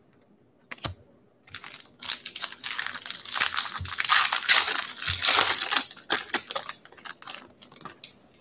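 A foil 2020 Bowman baseball card pack being torn open and crinkled by hand: a dense crackling rustle of several seconds, loudest in the middle, thinning to a few light clicks near the end.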